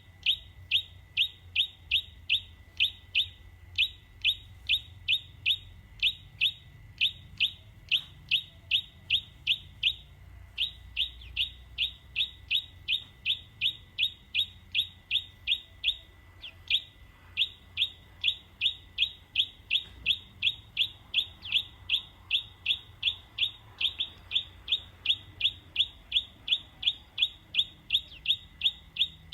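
A bird calling in a rapid, very regular series of short, high, falling chirps, about three a second, pausing briefly twice.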